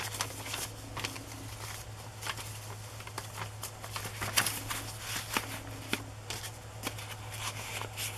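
Paper being handled: journal pages and loose paper pieces rustling and crinkling as they are lifted and turned, in scattered soft clicks and rustles over a steady low hum.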